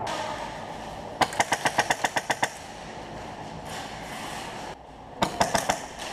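Airsoft M4-style rifle firing on full auto: a rapid burst of about a dozen shots about a second in, then a shorter burst of about five near the end.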